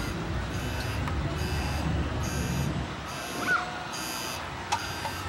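A high-pitched electronic-sounding beep pulsing a little more than once a second over a steady low rumble of outdoor noise, with a short click near the end.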